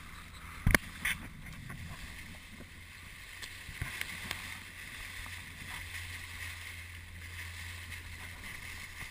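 Sea water sloshing and lapping around a camera held right at the surface, over a steady low hum. There are two sharp knocks about a second in and a few smaller ticks around four seconds.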